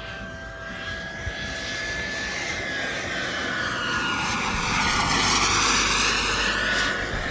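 Turbine-powered RC jet flying past: the high turbine whine over a jet rush grows louder to a peak about five to six seconds in, and the whine drops in pitch as the jet goes by.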